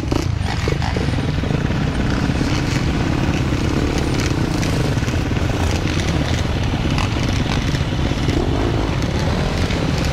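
Engines of a crowd of quad ATVs and dirt bikes running together, a dense, steady din of motors with crackling exhaust.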